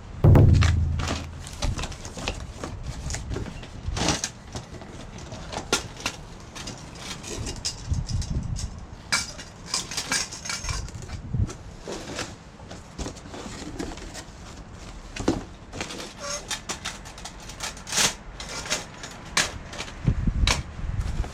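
Stainless-steel fire pit parts being handled: irregular metallic clinks, clatters and knocks, with a heavier thump at the start.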